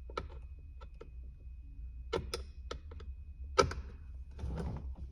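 Irregular light clicks and taps of a screwdriver bit and hands working on a plastic center-console latch, with a few sharper knocks about two and three and a half seconds in.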